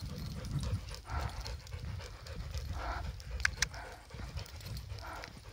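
A dog panting softly at close range over a low rumble of wind on the phone's microphone, with footsteps on a dirt track and a single sharp click about three and a half seconds in.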